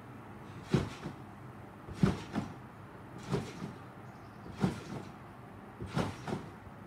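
Person bouncing on a backyard trampoline: the mat and springs thump once with each landing, about every 1.3 seconds, five times.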